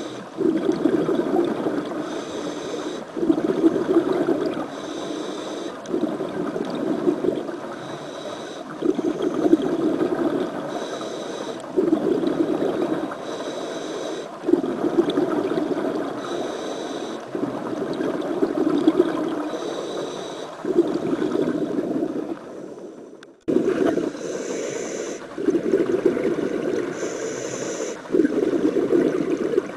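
Scuba diver breathing through a regulator underwater. A short hiss on each inhalation alternates with a louder burst of exhaled bubbles, about one breath every three seconds, with a brief break about three-quarters of the way through.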